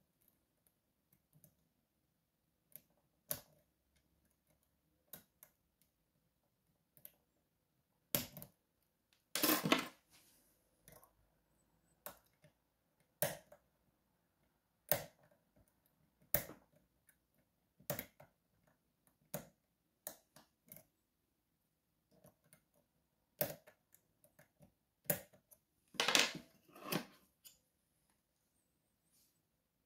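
Lock pick and tension tool working the sliders of an Evva 3KS slider lock held in a vise: scattered sharp metallic clicks and taps, one every second or two, with a longer scraping rattle about a third of the way in and a tight cluster of clicks near the end.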